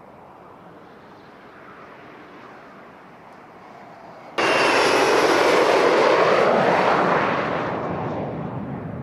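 Fighter jet engine noise: a distant jet rumble, then a much louder jet at full afterburner passing close, breaking in abruptly about four and a half seconds in. The roar sweeps down in pitch as the jet goes by and fades over the last two seconds.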